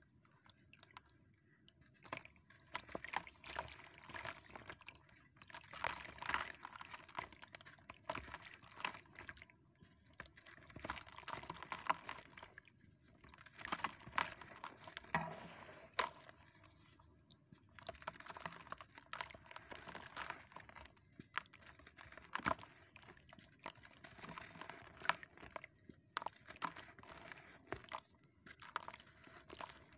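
A sandy, dusty block crumbled by hand into a basin of water: gritty crunching and crackling mixed with splashing and sloshing water. It comes in bouts of a few seconds with brief pauses between them.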